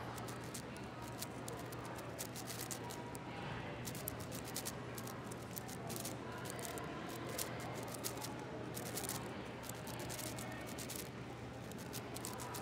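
Plastic layers of an AoShi WRM 6x6 speed cube being turned fast, an irregular run of quick clicks and clacks, over a steady low hum.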